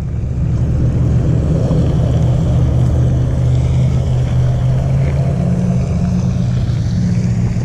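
Fishing reel cranked steadily as a hooked fish is reeled in, a low whirring drone.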